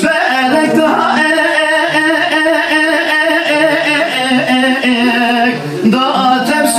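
A male Kurdish dengbej singer sings unaccompanied in long, wavering held phrases, with a short break for breath about five and a half seconds in.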